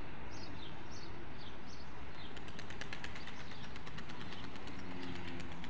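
Small birds chirping, a string of short quickly falling calls, with a fast run of ticks from about two to four and a half seconds in. A steady low rumble of street ambience sits underneath.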